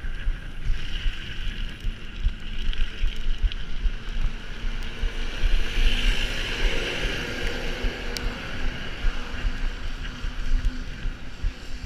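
Wind buffeting a microphone on a moving mountain bike, a gusty low rumble with a steady rushing hiss over it.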